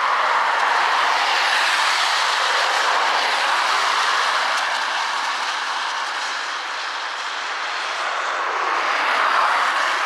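Road traffic passing close by: a steady rush of tyre noise that eases off a little and swells again near the end.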